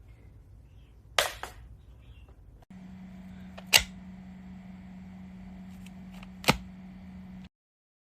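Sharp clicks or knocks of hard objects, one near the start quickly followed by a second, then two more a few seconds apart, over a steady low hum that begins about a third of the way in.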